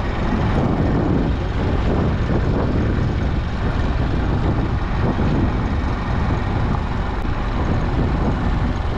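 Steady rush of wind on the microphone mixed with the low rumble of a vehicle travelling along a road.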